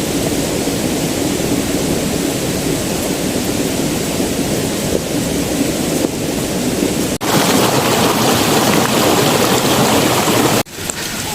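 Mountain stream rushing over rocks, a steady wash of water noise. It breaks off sharply about seven seconds in and again near the end, coming back each time at a different level.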